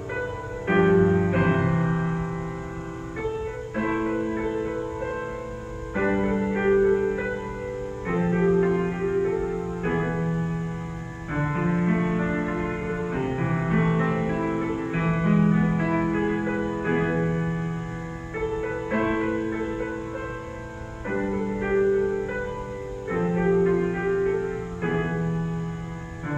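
Solo grand piano played live: a slow piece of ringing notes and chords that swells into louder phrases every few seconds.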